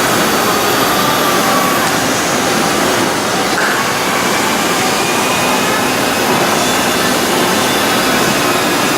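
Lagun-Republic FTV-2 vertical milling machine running under power, its 3 HP motor giving a steady, even whirr with faint whines over it.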